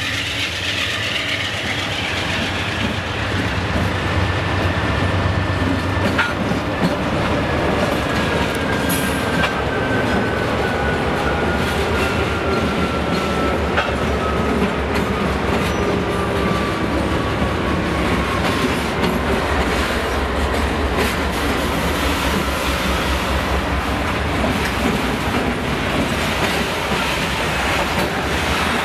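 Diesel freight train passing: the engines of its three-locomotive lead run by first, then the freight cars roll past with a rhythmic clickety-clack of wheels over rail joints. A thin squeal falls slowly in pitch for about ten seconds in the middle.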